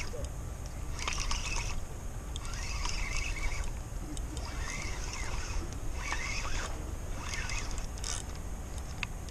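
A steady low rumble of wind on the microphone, with short bursts of hiss and scraping every second or so.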